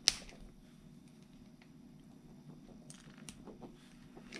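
A sharp click as the servo horn is pushed onto the steering servo's splined output shaft of a 1/18 RC rock crawler. Faint clicks and small handling rattles follow as the truck is handled, over a low steady hum.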